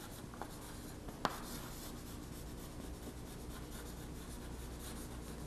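Chalk writing on a blackboard: faint scratching strokes, with one sharper tap of the chalk about a second in.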